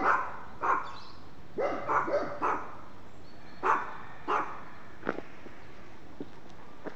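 A dog barking in short single barks, with a quick run of several about two seconds in; the barking stops about five seconds in.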